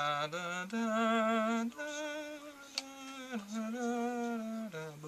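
A person humming a slow wordless tune, holding wavering notes that step up and down in pitch. There is a single sharp click near the middle.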